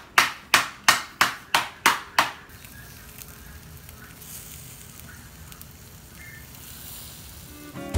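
Lumps of charcoal being crushed: sharp blows, about three a second, stopping about two and a half seconds in. Then chicken skewers and corn sizzling on a wire grill over hot charcoal, a soft steady hiss.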